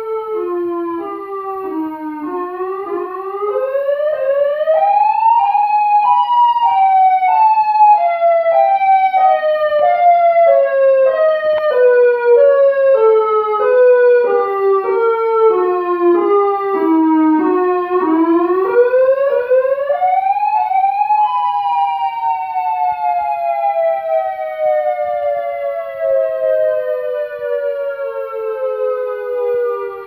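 Synthesized Federal Signal MC siren, alternate wail, played loud through a home stereo. A two-note tone climbs and falls in short stair-like steps, rises again about 19 seconds in, then glides slowly and smoothly downward.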